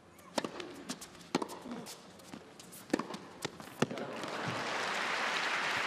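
Tennis rally: a string of sharp pops as the racket strikes the ball and the ball bounces on the court, several in the first four seconds, then crowd applause rising from about four seconds in as the point ends.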